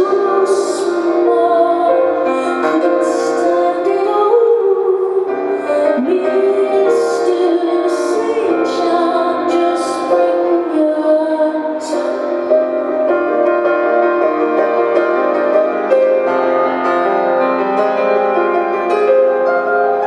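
Live music: a woman singing over piano accompaniment, with clear sibilants in the vocal line through the first part.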